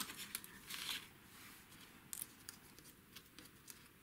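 Faint rustling and light taps of cardstock and a paper die-cut being handled and laid down on a craft mat.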